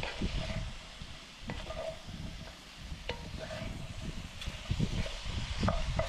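Sliced vegetables being stirred in a pan on a portable butane camp stove, the utensil ticking and scraping against the pan, over a low wind rumble on the microphone.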